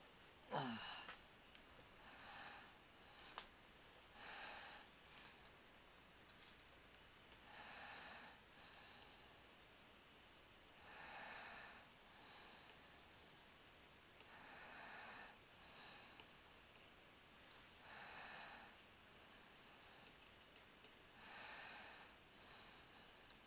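Faint breathing close to a headset microphone, a soft breath about every three to four seconds, some as an in-and-out pair. Near the start a short sound glides sharply down in pitch, the loudest moment.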